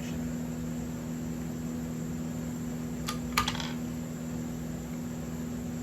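A steady low electrical hum, with two small sharp clicks a little past the middle, a few tenths of a second apart.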